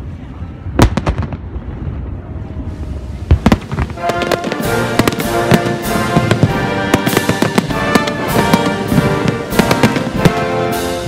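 Aerial fireworks shells bursting with sharp bangs: two single bangs about two and a half seconds apart, then bangs coming thick and fast. Music starts about four seconds in and plays under the bangs.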